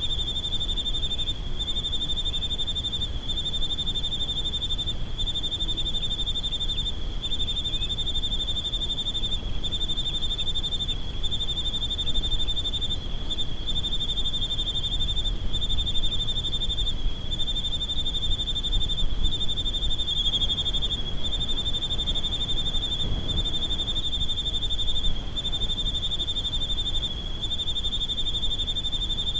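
A night insect trilling steadily on one high pitch, in long trills broken by short gaps about every second and a half, over a low rumble of residual wind.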